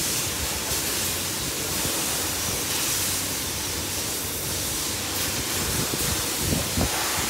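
Steady rushing hiss of background noise, with a few faint knocks near the end as a screwdriver is worked at a plastic dashboard panel.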